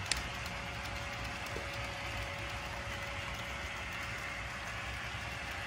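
HO scale model trains running on sectional plastic-roadbed track: a steady rolling rattle of small wheels and mechanisms, with a click just after the start and a faint steady motor whine coming in about a second and a half in.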